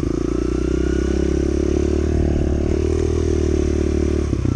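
Kawasaki KLX110 pit bike's small single-cylinder engine running at a steady pitch under way. It turns choppier near the end.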